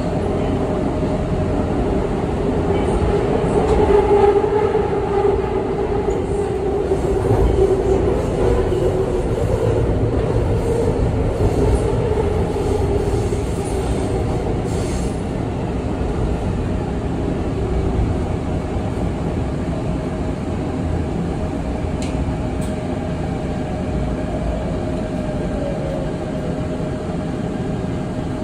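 Seoul Subway Line 2 electric train heard from inside the car, running on the rails with a steady rumble and a squealing tone. The noise eases off through the second half and a tone falls in pitch near the end as the train slows into the station.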